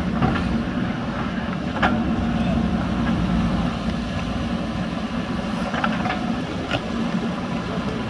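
JCB backhoe loader's diesel engine running steadily as its front bucket pushes soil, with a few brief knocks about two, six and seven seconds in.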